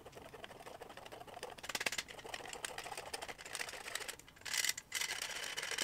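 Hand-operated metal flour sifter being worked, its mechanism clicking rapidly as flour and dry ingredients go through the mesh, with a short pause about four seconds in.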